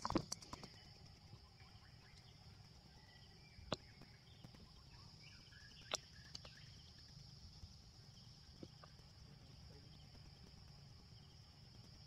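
Faint outdoor ambience of a steady, high insect drone, with a short cluster of sharp clicks at the start and single sharp clicks about four and six seconds in.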